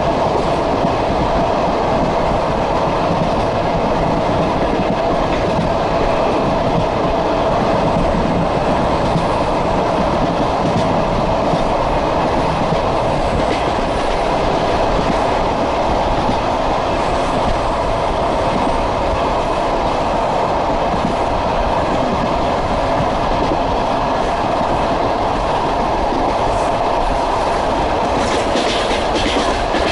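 Passenger train running at steady speed, heard from aboard, its wheels clattering over the rail joints under a constant drone. A few sharper clicks come near the end.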